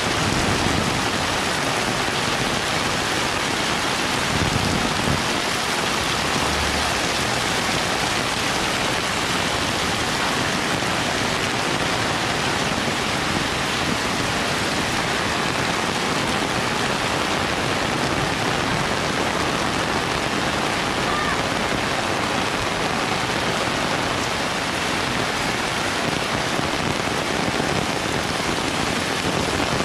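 Very heavy rain pouring steadily, an even dense hiss.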